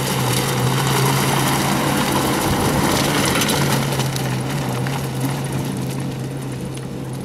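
Maruti Gypsy rally car's engine running under power as it drives over a stony riverbed, with tyres on loose rocks. The sound fades gradually in the second half as the car pulls away.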